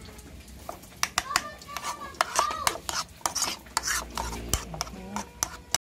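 A spoon stirring a thick, creamy sauce in a ceramic bowl: repeated quick clinks against the bowl, with a few short squeaky scrapes. It stops abruptly near the end.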